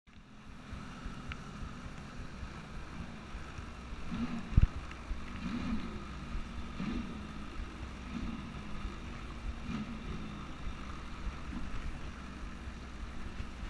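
Sea-Doo jet ski running under way on open water, a steady engine hum whose low pitch rises and falls roughly every second and a half. A single thump about four and a half seconds in is the loudest sound.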